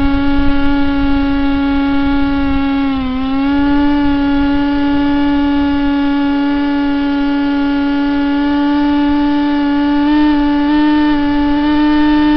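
Model airplane's motor and propeller whining at a steady pitch, heard from on board, dipping briefly about three seconds in and stepping slightly higher near the end. Low wind rumble on the microphone underneath.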